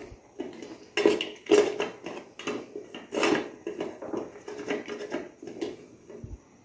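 A metal spoon scraping and clinking against a stainless-steel bowl while stirring chopped dark compound chocolate as it melts over a double boiler. Irregular strokes come about every half second, each with a short ring from the bowl.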